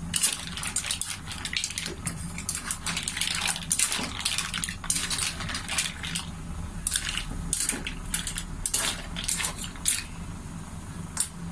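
Green mussel shells clattering against each other and against a metal wok as they are stirred with a metal ladle, in quick irregular clacks that thin out near the end. The mussels are cooked, their shells opened.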